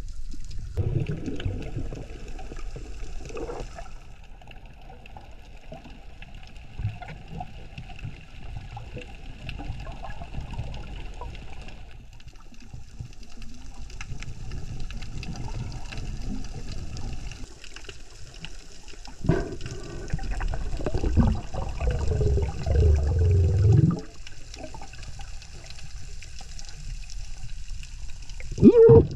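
Underwater ambience through a camera housing: a steady hiss with a low water rumble and faint crackling. Louder rushing and bubbling starts about twenty seconds in and lasts a few seconds, and a short loud splash comes near the end.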